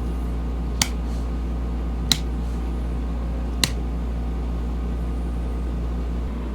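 Steady low hum of a machine, with three sharp clicks spaced about a second and a half apart.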